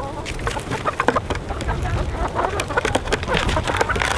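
A flock of hens clucking as they crowd around and follow a person carrying feed, with many short scuffs and clicks from footsteps and handling.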